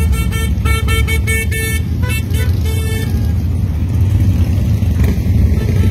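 Motorcycle engines rumbling as a line of bikes rides slowly past. Through the first three seconds a horn toots in quick repeated beeps.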